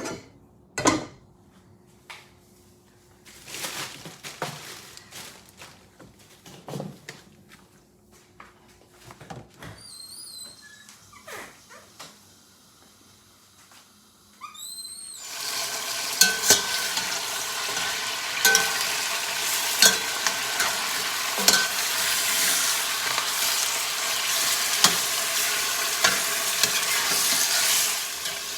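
Cooking in a pan: a few knocks and clicks of kitchen handling and some short warbling chirps, then about halfway through a sudden loud sizzle as food goes into hot oil, frying and crackling steadily with stirring.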